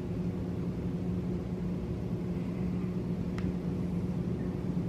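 Steady low mechanical hum with a constant pitch, and one faint click about three and a half seconds in.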